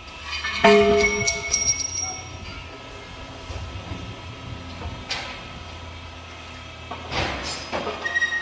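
Metal clanks of heavy tire-changing equipment, the loudest about a second in ringing on briefly, with weaker knocks around five and seven seconds, over a steady low machinery hum. A steady high squeal starts near the end.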